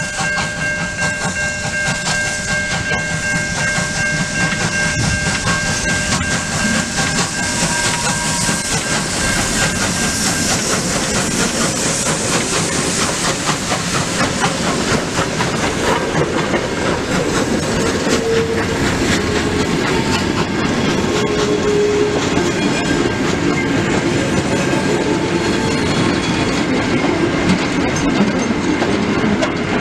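Victorian Railways J class 2-8-0 steam locomotive J549 and its train passing: a held, multi-note steam whistle for about the first ten seconds over steam hiss, then the goods wagons and wooden carriages rolling by with a steady clickety-clack of wheels over rail joints and a couple of short wheel squeals on the curve.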